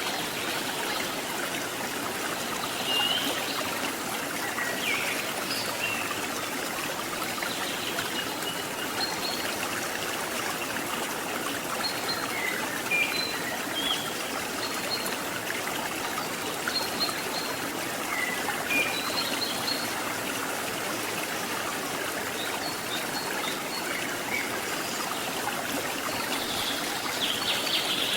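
Waterfall and stream running strongly with rainy-season water, a steady hiss of rushing water. Short high bird chirps come here and there over it.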